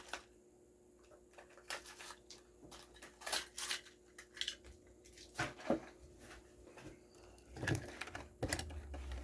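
Light, irregular clicks and crackles of a toy car's plastic blister pack and card backing being handled and opened by hand.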